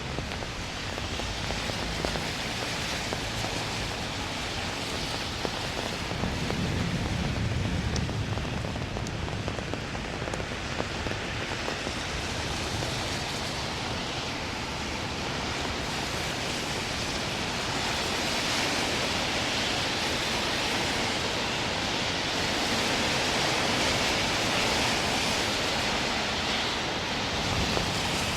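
Steady rain falling and splashing on street surfaces, a continuous hiss that grows a little heavier in the second half. A low rumble comes in about six seconds in and lasts a few seconds.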